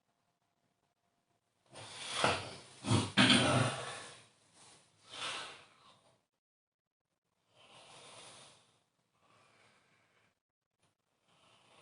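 A sleeping person snoring: a loud snore made of several quick snorts about two seconds in, then two shorter ones, then fainter breaths at intervals near the end.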